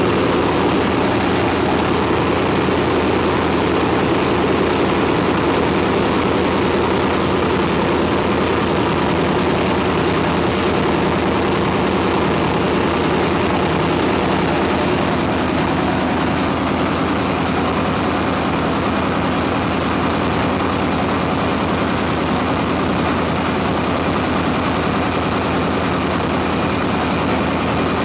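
Chevy 350 small-block V8 with throttle body injection idling steadily.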